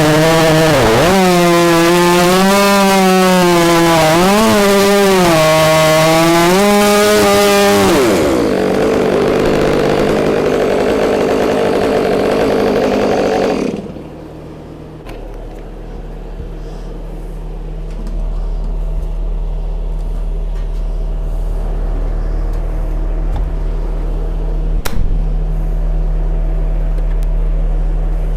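Stihl 500i two-stroke chainsaw cutting through an oak log, its engine pitch dipping and recovering under load for about eight seconds, then running hard until it cuts off about fourteen seconds in. A low steady hum remains after that, with a single sharp click near the end.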